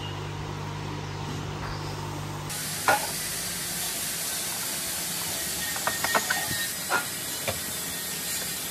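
Steady hiss with a low hum at first, then a few light knocks and clicks as a black sheet-metal control-panel housing is set down and handled on a steel checker-plate bench. The sharpest knock comes about three seconds in, and a cluster of clicks comes about six seconds in.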